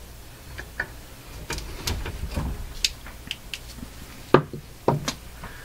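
Scattered clicks and knocks from a 1948 Philco console's record changer as its platter and mechanism are worked by hand, with two louder clunks near the end. The mechanism is stiff and badly in need of oiling.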